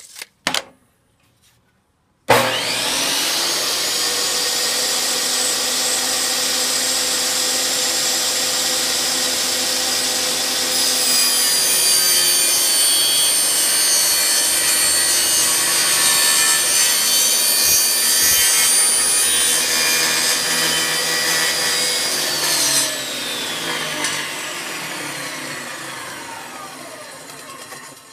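Benchtop table saw switched on about two seconds in and running steadily. From about ten seconds in it gets louder as the blade cuts up into a laminated MDF panel. It is then switched off and winds down with a falling whine that fades out near the end.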